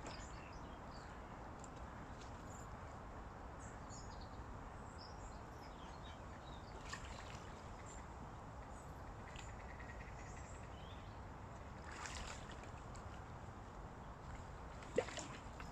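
Faint steady outdoor background noise with scattered small high chirps, a few soft clicks, and one sharp knock near the end.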